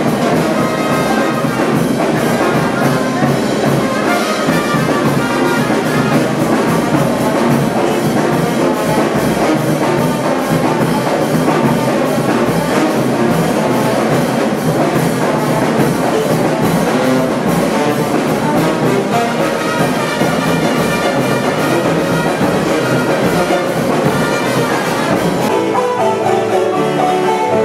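Brass band with a sousaphone playing a tune, loud and full with a strong bass line. Near the end the sound cuts abruptly to a different piece of music with no deep bass.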